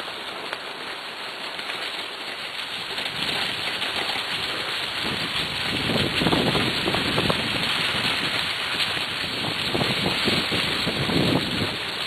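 Steady rushing and crunching of a wheeled dog-team rig rolling over a gravel, leaf-covered trail behind a running husky team, with wind on the microphone. It grows louder after a few seconds, with rougher stretches near the middle and near the end.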